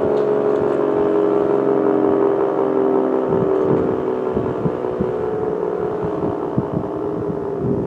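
P-50 outdoor warning siren winding down after its power was cut, a steady chord of tones slowly sinking in pitch and fading.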